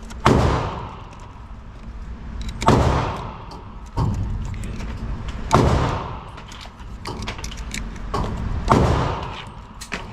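Gunshots at a shooting range, single shots spaced roughly two to three seconds apart, four loud ones and two fainter, each followed by a long echoing tail.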